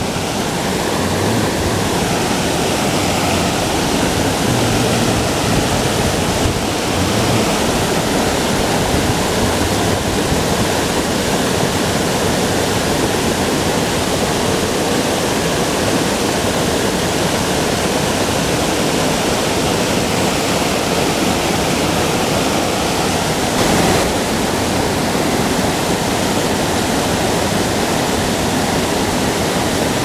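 Small waterfalls spilling over rock ledges into a creek pool: a steady, loud rush of falling water.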